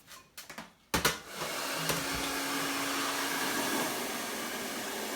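Hair dryer switched on with a sharp click about a second in, after a few small handling clicks, then blowing steadily.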